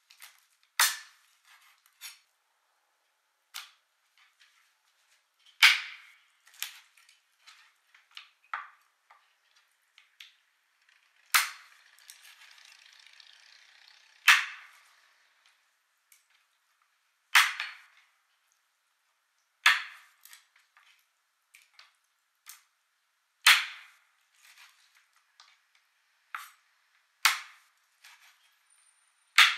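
Cleaver chopping through raw frog legs and striking a wooden cutting board: about nine sharp chops every two to three seconds, with lighter knife taps between them. About halfway through there is a couple of seconds of soft scraping.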